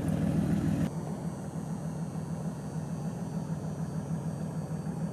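Air-cooled flat-six engine of a 1985 Porsche 911 running steadily, with no change in pitch. About a second in, the sound drops abruptly to a quieter, thinner version of the same steady running.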